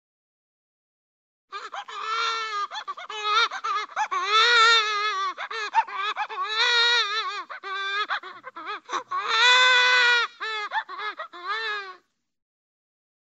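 Cartoon baby crying sound effect: a high-pitched, wavering wailing voice in sobbing bursts, the longest and loudest wails about 4.5, 7 and 10 seconds in. It starts about a second and a half in and cuts off about a second before the end.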